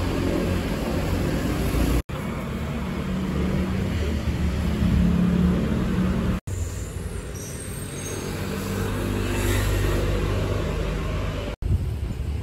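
Street traffic: motor vehicles running close by with a steady low engine hum and road noise, broken by three brief dropouts.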